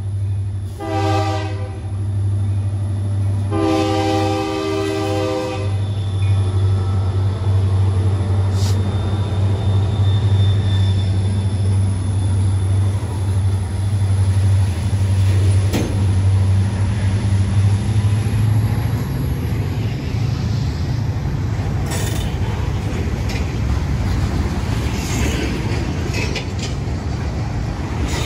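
Freight diesel locomotive blowing its horn, a short blast about a second in and a longer one about four seconds in. Its engine then drones steadily as it passes close by, giving way after about twenty seconds to the rumble and clatter of freight cars rolling on the rails.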